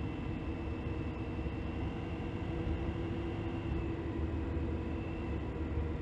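Vespa GTS scooter engine running steadily on the move, a constant drone over low rumble, its pitch shifting slightly partway through.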